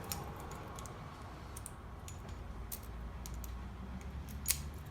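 Scattered light metallic clicks and ticks of small lock parts being handled as an aluminum storefront mortise cylinder is rekeyed, with one sharper click near the end.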